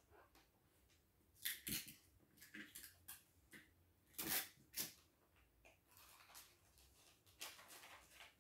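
Faint, short crinkles and rustles of Christmas wrapping paper as a large wrapped gift box is handled and opened, a few separate rustles with the loudest about four seconds in.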